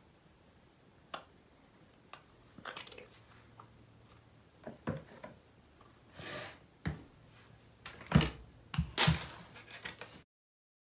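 Handling noise from a plastic bottle of white glue and a plastic mixing bowl: scattered light clicks and taps, a short rustling hiss about six seconds in, and a few louder knocks near the end. The sound then cuts off abruptly.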